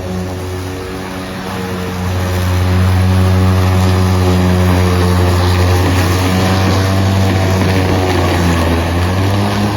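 EGO battery-powered lawn mower running while cutting grass: a steady motor-and-blade hum that gets louder about two seconds in, its pitch dipping and then recovering in the second half.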